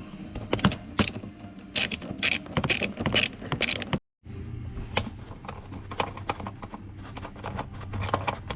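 Irregular metallic clicks, clanks and knocks of hand tools and car parts being worked, over a low hum. The sound cuts out suddenly about four seconds in and then resumes.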